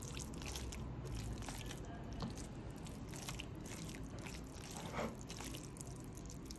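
A bare hand squeezing and mashing steamed bottle gourd leaves with spice paste on a plate, making a run of soft, irregular wet squelches and squishes.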